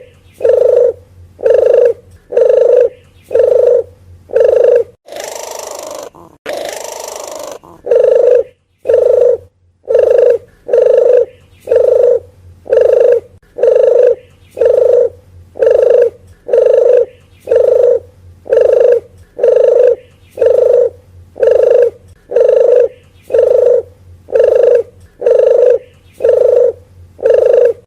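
Red collared dove (deruk geni, puter geni) cooing: a long run of low, evenly spaced coos at about one and a half a second. The coos stop for a couple of seconds around the fifth second, where two bursts of hiss come in, then carry on.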